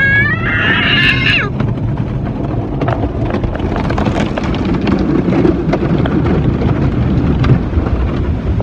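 Automatic car wash heard from inside the car: water spray drumming on the roof and windows over the wash machinery's steady loud rumble. A child gives a brief high-pitched squeal at the start.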